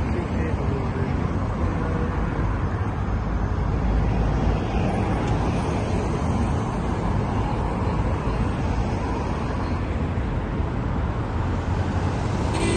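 Steady city street traffic noise: cars and SUVs driving past on a multi-lane road, a continuous mix of engine and tyre noise.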